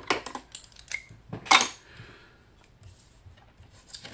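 Craft-desk handling sounds: paper and a pair of metal scissors picked up and moved about, with a sharp clack about a second and a half in, then faint snips of the scissors starting to cut paper near the end.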